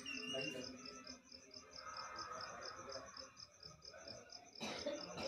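Cricket chirping in a steady, rapid rhythm, about five high-pitched chirps a second. A short rush of noise comes in near the end.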